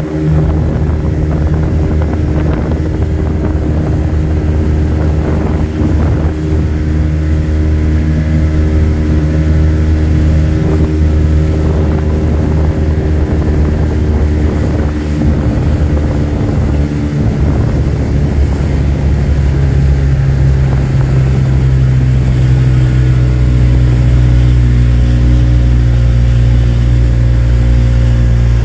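Boat engine running steadily, heard from on board. About two-thirds of the way through its pitch shifts and it grows a little louder.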